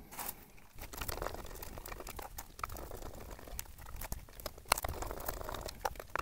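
Torx screws being backed out of the plastic control-housing lid of a Webasto Thermo Top V fuel-burning heater, with the unit handled and turned on a wooden workbench: a string of small clicks, scrapes and rustling, the sharpest click about three-quarters of the way through.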